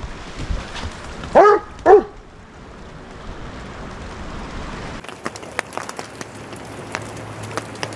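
German shepherd barking twice, two short loud barks about half a second apart. Later, scattered ticks of rain drops.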